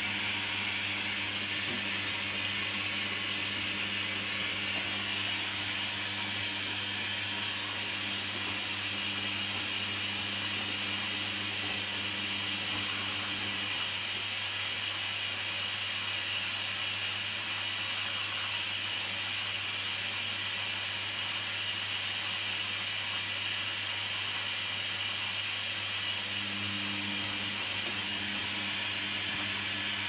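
Hoover Dynamic washing machine tumbling laundry through deep final-rinse water, with steady sloshing and a low motor hum. The motor hum drops out about halfway through as the drum pauses, and comes back near the end as it turns again.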